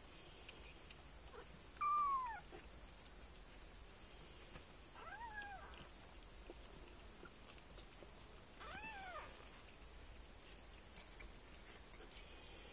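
A young kitten mewing three times: short, high calls that rise and then fall in pitch, about two, five and nine seconds in, the first the loudest.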